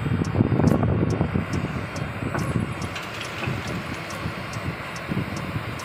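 Tracked excavator's diesel engine running while the loaded bucket swings over to the trolley.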